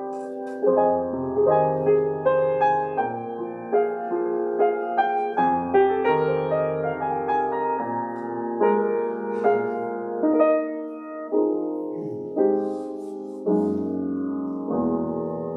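Piano playing a slow piece of chords over low bass notes, each chord struck and left to fade.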